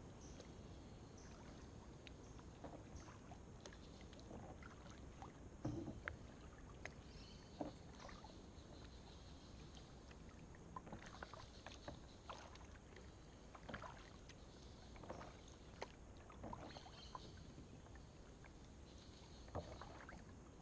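Faint kayak paddling on calm water: soft, irregular splashes and drips of paddle strokes.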